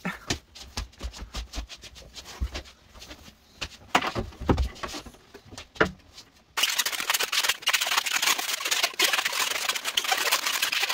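A few knocks and thumps, two louder ones about four seconds in. Then, about two-thirds of the way through, a latex modelling balloon is twisted into a balloon animal, its rubbing and squeaking dense and crackly until the end.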